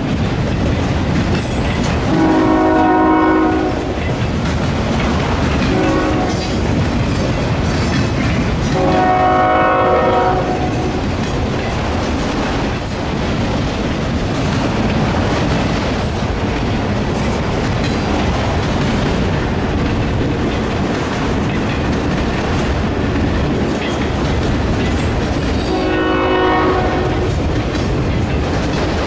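Freight train passing with a continuous rumble and wheels clattering over rail joints, while a diesel locomotive's multi-note air horn sounds several times. There are long blasts about 2 and 9 seconds in, a short one around 6 seconds, and another blast near the end.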